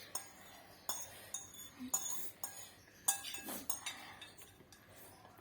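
Eating utensils clicking and clinking against a dish of instant noodles: a string of separate light clinks at an uneven pace.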